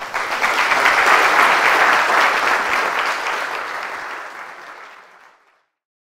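Audience applauding. It starts suddenly, is loudest in the first couple of seconds, then fades out steadily and is gone about five and a half seconds in.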